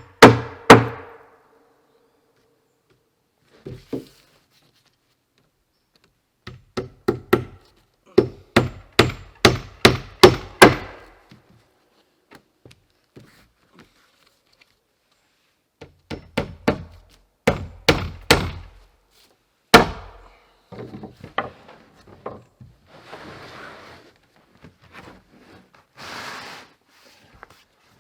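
Hammer driving nails into a wooden roof, in runs of quick strikes a few to the second with pauses between. In the last third it gives way to softer rustling and light knocks.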